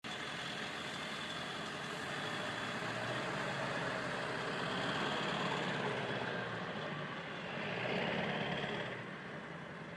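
A motor vehicle's engine running. The sound swells around the middle and again about eight seconds in, then eases off near the end.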